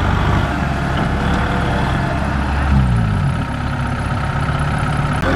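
Kubota M6040SU tractor's four-cylinder diesel engine working under load as it pushes a combine harvester stuck in mud, its revs dipping briefly about three seconds in.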